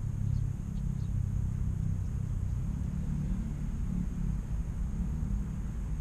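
Low, steady outdoor rumble with a few faint, short high chirps in the first second.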